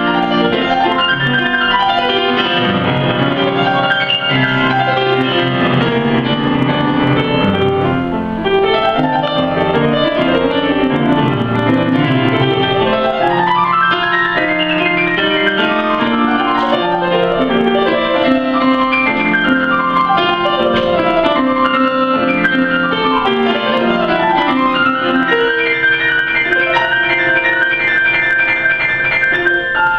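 A grand piano played solo: a continuous classical piece of dense chords and fast running figures, with a sweeping run up the keyboard about halfway through and another climbing passage near the end.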